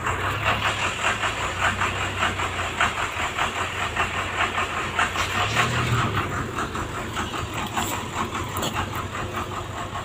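Diesel engine of a Lonking CDM512D road roller running steadily: a low hum with a fast, even clatter on top.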